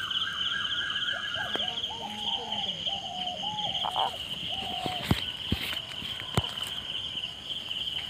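A steady, pulsing, high trill of night insects, with a run of short, wavering calls over the first half that are typical of frogs. A few sharp clicks come later.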